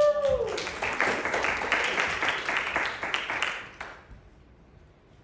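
Audience applauding, with one whooping cheer at the start; the clapping lasts about four seconds and then dies away.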